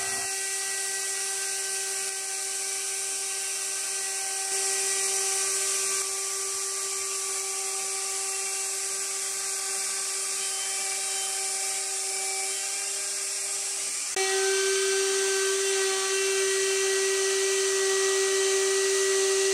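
CNC router spindle running with a steady high whine while its cutter skims about a millimetre off the face of a glued-up wooden pattern block to flatten a bow. The tone shifts and grows a little louder about fourteen seconds in.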